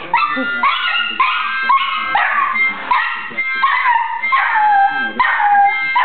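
Small dog 'singing': a continuous run of wavering howls and yips with short pitch swoops, and a longer falling howl about five seconds in.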